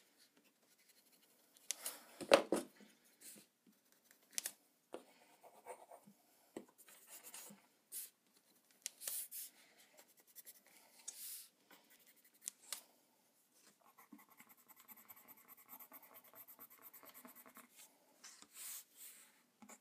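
A white drawing pencil scratching across drawing paper in short, scattered strokes, quiet and intermittent, the loudest about two seconds in. Near the end it settles into a faint, continuous run of quick small strokes.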